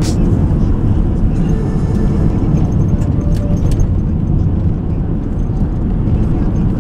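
Steady low road rumble inside a car's cabin while it drives on a gravel road, tyre and engine noise together, with a few light ticks about two to four seconds in.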